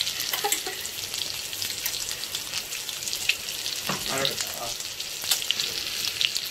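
Oil and ghee sizzling and crackling steadily in a kadai around dollops of freshly added ground masala paste and curry leaves, frying over high heat.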